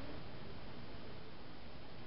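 Steady faint background hiss of room tone, with no distinct event.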